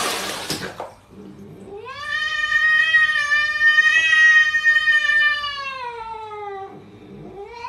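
A cat's long drawn-out yowl, rising at the start, held for about four seconds, then falling away, followed near the end by a shorter rising call.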